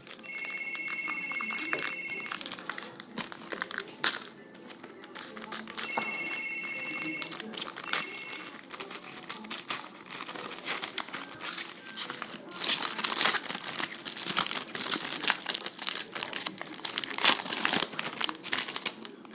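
Packaging of a trading-card pack being torn open and crinkled by hand, with irregular crackling throughout. A short steady high tone sounds twice, near the start and about six seconds in.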